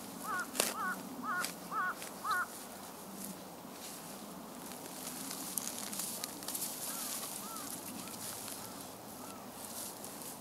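A bird calling a quick run of short, repeated notes for the first couple of seconds, then fainter calls later on. A few sharp knocks of a shovel digging into the levee soil come through, the loudest about half a second in.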